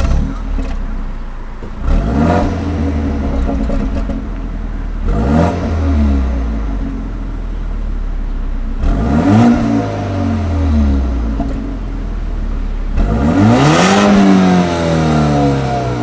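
BMW 228i's turbocharged 2.0-litre four-cylinder (N20) cold-started through its factory exhaust. It catches with a sudden jump in level right at the start, then idles with four quick revs, the last one the highest and longest.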